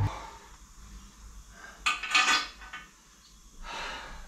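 Metal tools and engine parts clinking and clattering, in two short bursts about two seconds in and again near the end.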